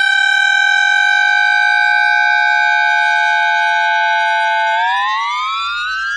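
Hitachi VFI-HD2420C IGBT-VVVF traction inverter of a DKZ5B subway train, picked up by an inductor rather than a microphone. It holds a steady high whine on its 780 Hz asynchronous carrier, then about five seconds in the pitch starts rising as the carrier sweeps up toward 1800 Hz while the train accelerates.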